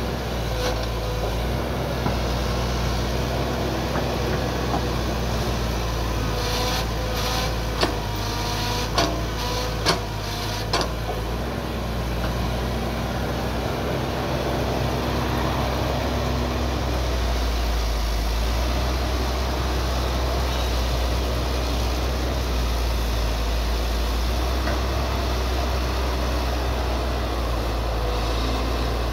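Hitachi hydraulic crawler excavator's diesel engine running steadily under working load as it digs and moves peat and debris. A few sharp knocks come about a third of the way through.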